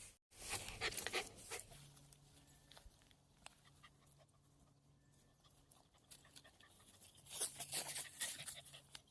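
Japanese spitz dog panting faintly in two short spells of about a second each, one near the start and one near the end.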